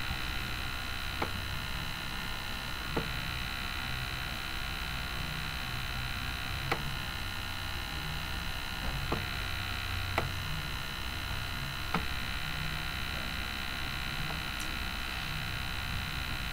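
Steady electrical mains hum with hiss, and about six faint, sharp clicks scattered through it.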